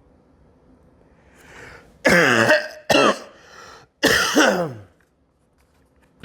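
A person gives three loud, forced coughs, each falling in pitch and the last the longest, staged to cover up a fart.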